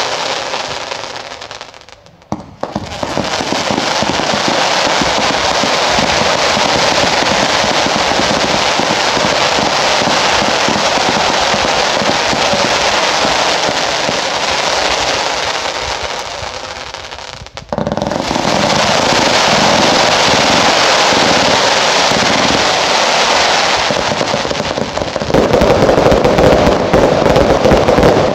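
Consumer category 2 fireworks firing in a finale barrage: a dense, continuous rattle of rapid shots and bangs. It drops away briefly about two seconds in and again about seventeen seconds in, then grows louder near the end.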